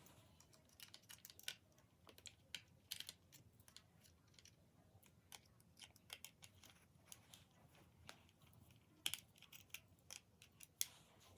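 Small parts of a toy wing pack being handled and fitted together: irregular light clicks and taps, with two sharper clicks about nine seconds in and near the end.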